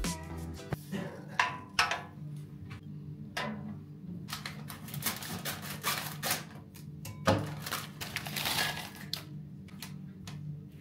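Crinkling and rustling of a plastic snack bag as it is handled and cut open with scissors. About eight seconds in there is a denser crackling clatter as tortilla chips are poured into a glass bowl.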